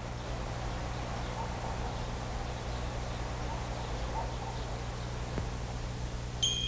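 Faint outdoor ambience over a steady low hum, with a few faint bird chirps. A bell-like chime starts ringing just before the end.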